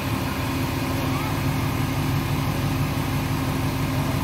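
Dodge Challenger R/T Shaker's 5.7-litre HEMI V8 idling steadily.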